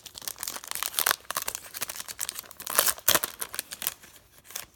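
Plastic wrapper of a trading-card pack crinkling and tearing as it is pulled open by hand, in uneven bursts with a loud stretch about a second in and another around three seconds in.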